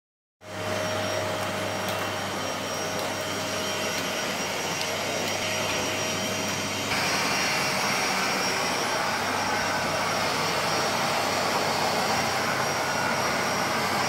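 Vacuum cleaner running steadily as its floor head is pushed over a rug. About halfway through the sound steps up, louder and hissier, and stays there.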